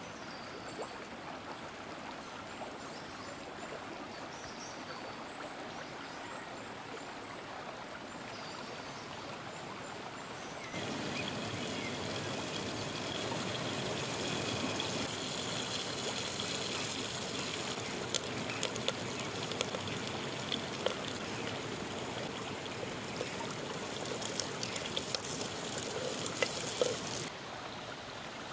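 A river stream flows steadily, with a few faint high chirps. About eleven seconds in, hot oil starts sizzling in a black cooking pot over a wood fire. From about the middle on, small crackles and pops come through the sizzle, and it cuts back to the stream's sound shortly before the end.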